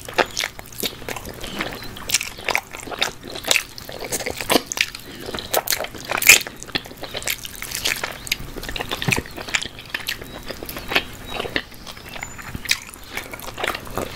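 Close-miked biting and chewing of a sauce-covered barbecue chicken drumstick: a steady run of short mouth clicks and smacks, the loudest about six seconds in.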